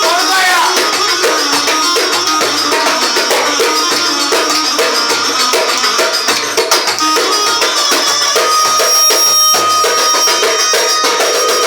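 Çiftetelli dance music: a quick, steady beat on hand percussion under melody instruments holding sustained notes.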